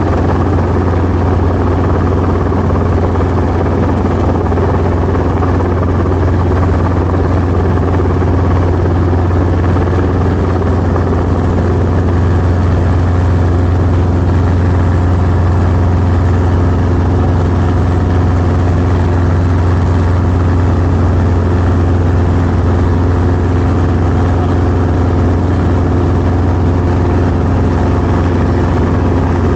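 Training helicopter running steadily as it taxis: a constant low drone of rotor and engine with a strong low hum, unchanging throughout.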